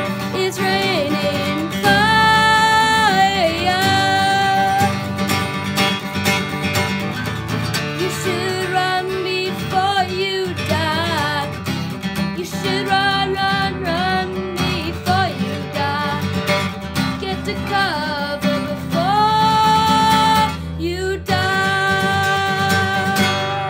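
Steel-string acoustic guitar strummed in a steady rhythm, with a sung melody of long held notes that bend in pitch over it.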